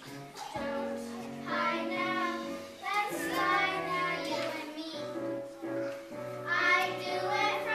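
Children singing together over a steady instrumental accompaniment, the voices coming in about a second and a half in and again near the end.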